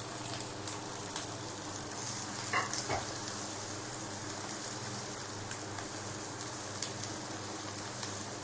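Sliced onions sizzling steadily as they fry in oil in a non-stick wok, stirred with a spatula, with a few light taps.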